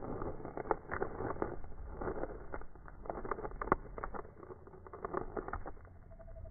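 Small frog making quick, irregular squeaky chirps, several a second, as a finger is held close to it.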